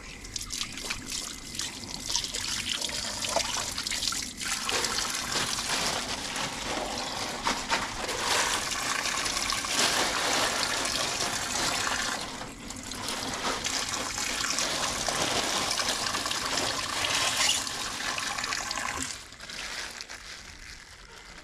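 Water trickling and splashing steadily, with two short breaks, then fading out near the end.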